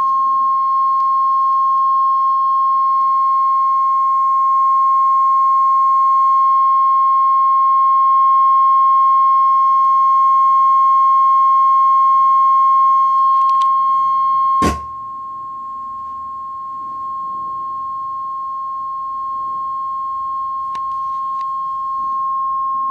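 Steady 1 kHz test tone from a signal generator, played through the speakers of a 1965 Admiral stereo tuner-amplifier. About two-thirds of the way in a sharp click cuts the tone to a quieter, purer sound, and it then steps up in loudness twice as the channels are being balanced.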